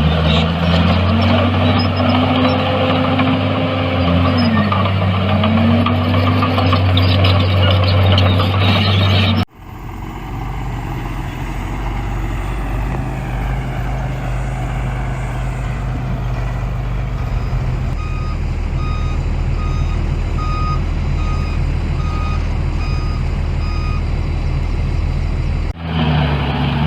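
Diesel engines of heavy earthmoving machinery working loudly, with the engine note rising and falling. After an abrupt cut a machine runs more quietly, and a reversing alarm beeps at an even pace for several seconds before a cut back to loud engine noise.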